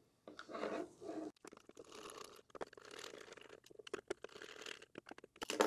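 Small Phillips screw being driven into a plastic housing with a precision screwdriver: faint, irregular creaking and grinding as the thread bites into the plastic, with scattered small clicks and a louder click near the end.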